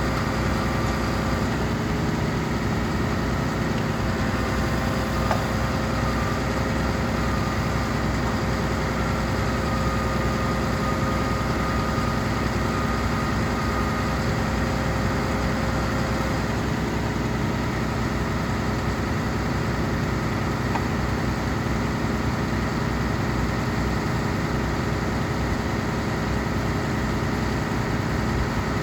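A heavy engine idling steadily, with a faint higher whine in the first half.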